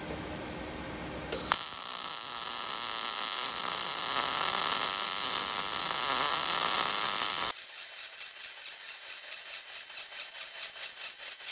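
MIG welding arc from a Blue Demon BlueArc 200MSTI inverter welder, set to about 18 volts and 205 inches per minute wire feed on a 110-volt supply. A sharp click as the arc strikes about a second and a half in, then a loud, steady hiss for about six seconds. It then goes on quieter with an even pulse of about four a second.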